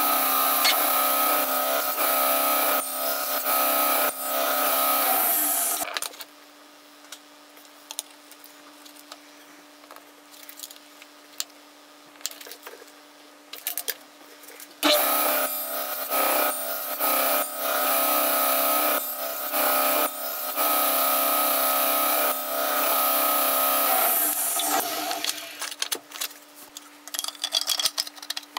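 Table saw running while cutting wood on a crosscut sled. It is switched off about five seconds in and winds down. It starts again abruptly about halfway through, runs for some nine seconds and winds down once more.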